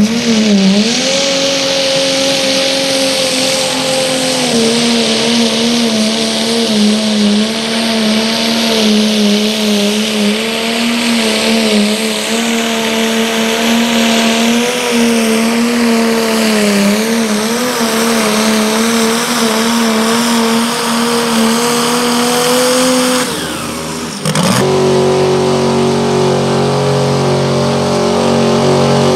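Modified garden pulling tractor's engine running flat out under load, its pitch holding high with small wavers while it struggles against the sled. About 24 seconds in, a cut to a pickup truck's engine running at steady high revs.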